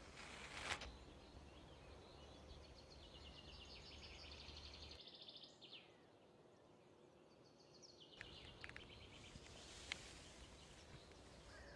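Very quiet lakeside ambience with birds singing in quick repeated high notes. There is a short burst of noise about a second in and a single click near the end.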